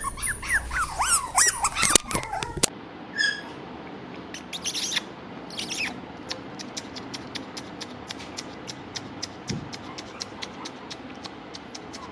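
Miniature Pomeranian puppies whimpering and yelping in short, high, sliding cries for the first two and a half seconds. Then the sound cuts to a quieter background with a few short high chirps and a fast, even ticking.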